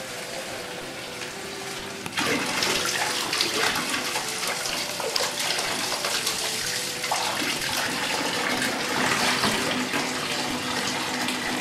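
Tap water running and splashing into a bathtub holding cloudy bath-bomb water. It gets louder about two seconds in.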